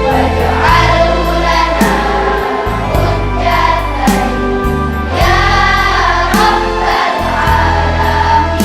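Music: voices singing a slow melody over held bass notes that change every second or so.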